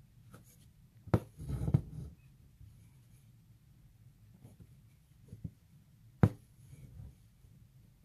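Hand embroidery close to the microphone: embroidery floss drawn through taut hoop fabric with a short scratchy rustle, and sharp taps of needle and fingers on the drum-tight fabric, the loudest about a second in and again about six seconds in, with a few lighter ticks between.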